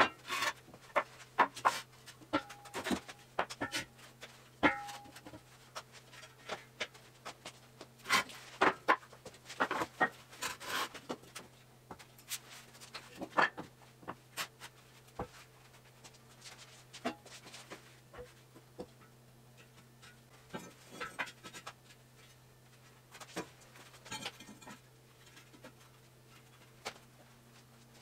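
Irregular knocks and clunks of wooden blocks and a long steel channel beam being handled and set down on a concrete floor, with a couple of brief metallic rings in the first five seconds. The knocks thin out in the second half, and a steady low hum runs underneath.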